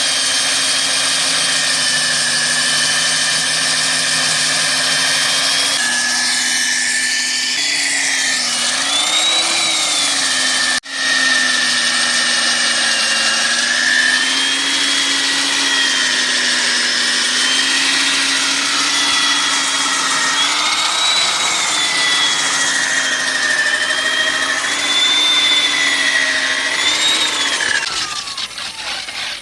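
Electric concrete core-drilling machine running under load as it cuts a 6-inch hole through a concrete wall. The motor whines steadily, its pitch dipping and recovering as the bit bites, with a very brief dropout about eleven seconds in, and it winds down near the end.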